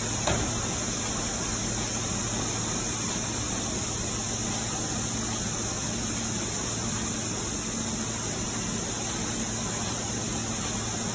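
Gasket strip-cutting machine running with its belt feed on: a steady low hum with a strong hiss over it, and one short knock just after the start as the strip is fed in by hand.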